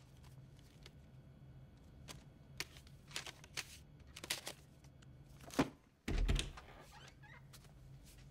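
Light handling sounds from a hollowed-out hardback book: a few small clicks and paper rustles as it is opened and a disk and banknote are taken from its cut-out compartment. Then comes a sharp knock, and just after it a heavy low thud, over a steady low hum.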